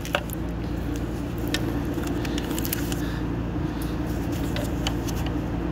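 A steady low machine hum, with scattered light clicks and taps from engine-bay parts being handled.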